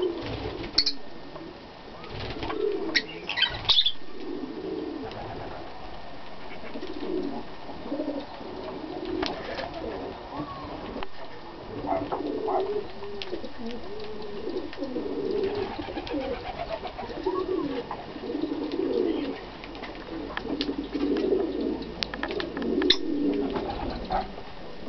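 Birds in an aviary: a low, dove-like cooing repeated about once a second, with a few short, sharp high chirps from the feeding lovebirds.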